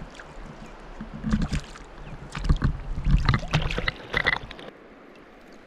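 Water splashing, with knocks and clatters for about three and a half seconds, as a hooked smallmouth bass is brought to hand beside the board.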